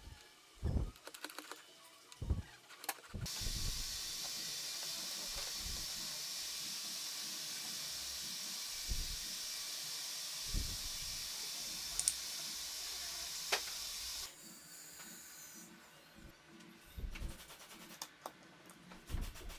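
A steady hiss lasting about eleven seconds, starting about three seconds in and cutting off suddenly, with scattered short knocks and handling bumps before and after it.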